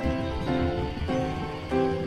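Background music: plucked instrument notes changing about every half second.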